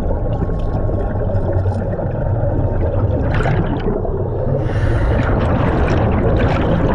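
An underwater diver breathing, heard under a steady low rumble of water and breathing gear. Exhaled bubbles rush out in bursts about three seconds in, and again from about four and a half seconds on.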